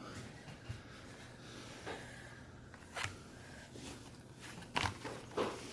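Faint handling noises: a handful of brief rustles and scrapes, spaced a second or so apart, as objects are moved about.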